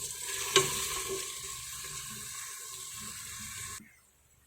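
Diced onions sizzling as they fry in butter in a pressure cooker pot, with a sharp utensil knock about half a second in. The sizzle cuts off abruptly a little before four seconds.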